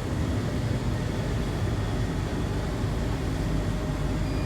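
Rainmaster D35 industrial tumble dryer running, its drive motor turning the drum in a steady low rumble, now that the loose wire on the motor's power line has been reconnected.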